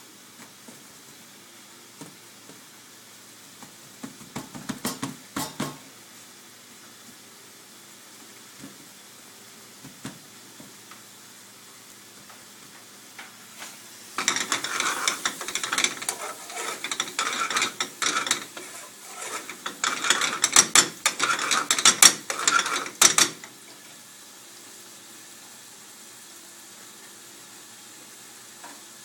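Metal spoon stirring and scraping in a pan of thick, dry bhuna prawn sauce: a dense, irregular clatter starting about halfway through and lasting around nine seconds. A few knocks come earlier, over a steady low kitchen hum.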